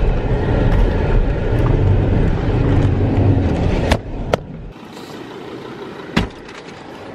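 Ford Endeavour 3.2 diesel SUV heard from inside the cabin driving over a rough sandy track: a loud low rumble of engine and tyres. About four and a half seconds in it drops suddenly to a quieter hum, with a few sharp clicks.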